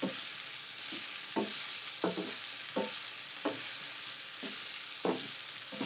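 Sliced potatoes and green beans sizzling in oil in a nonstick pan while being stirred with a wooden spatula. The spatula scrapes through the vegetables six times, every second or so, over a steady frying hiss.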